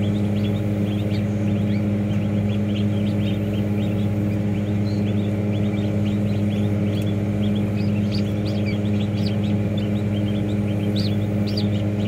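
Many rapid, high-pitched peeps from newly hatched ducklings, over the steady low hum of incubator machinery.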